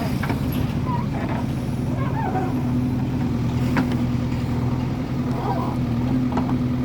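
JCB 3DX backhoe loader's diesel engine running steadily, a low even hum.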